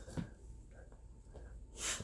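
A dog snorting once near the end, a short breathy puff, after a soft click near the start.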